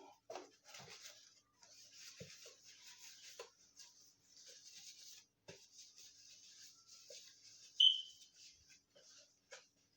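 Disinfectant wipe rubbing over a boxed action figure's package in uneven strokes, a soft scratchy swishing with a few light knocks, and a brief squeak about eight seconds in.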